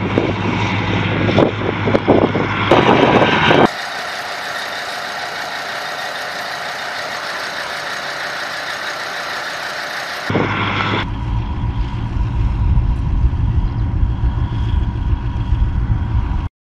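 Engine of a tracked self-propelled howitzer running with a low rumble. For several seconds in the middle this gives way to a steady hiss with no rumble. The rumble then returns and cuts off abruptly near the end.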